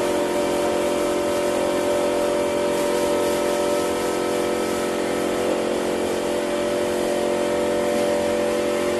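A machine running steadily at constant speed: an even, pitched motor or engine drone that holds without change.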